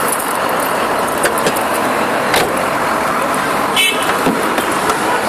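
Steady road traffic noise from cars on a street, with a few short clicks.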